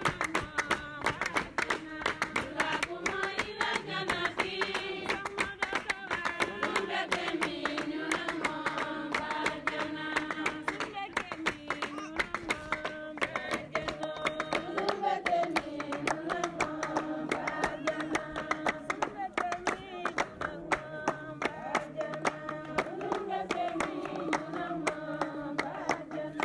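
Music: a voice singing over guitar with a quick, steady plucked rhythm.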